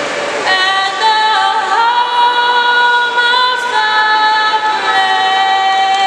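A group of voices singing slow, long-held notes together in harmony, each chord held for a second or so before moving to the next.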